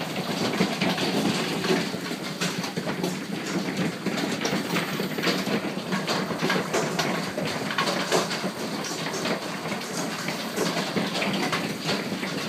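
Large hailstones pelting down in a heavy storm: a loud, steady clatter of countless impacts.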